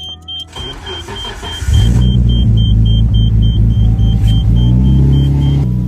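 Nissan Skyline GT-R R32's twin-turbo straight-six cranked over on the starter and catching about a second and a half in, then running at a steady idle; this is its first start since the leaking open vacuum hose was capped. The car's warning chime beeps rapidly until near the end.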